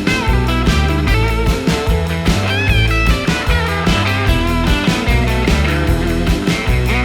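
Rock music with guitar, bass and a steady drum beat.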